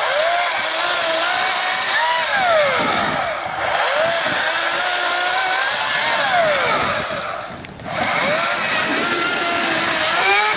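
Ryobi 14-inch 40-volt brushless battery chainsaw cutting through a spruce log, its motor whine sagging and rising in pitch again and again as the chain works through the wood. The sound drops away briefly twice, about three and a half seconds in and again near eight seconds.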